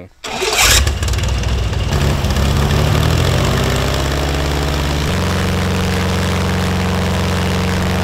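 Airboat engine and propeller running hard, climbing in pitch over the first few seconds and then holding steady. It is blowing a strong wind across vinyl fence sections.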